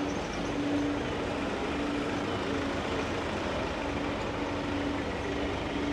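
A road vehicle's engine running at close range, a steady low hum with a tone that drops in and out, over street noise.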